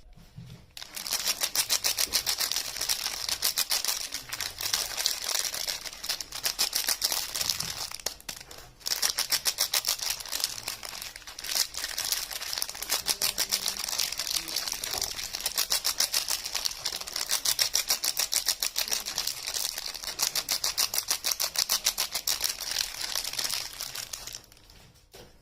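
Packaging being unwrapped and handled, a continuous dense crinkling crackle with two brief pauses.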